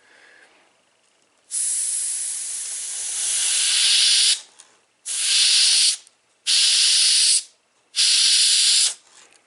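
Airbrush spraying paint in short trigger pulls: one hiss of about three seconds, then three shorter hisses of about a second each, with brief gaps between them.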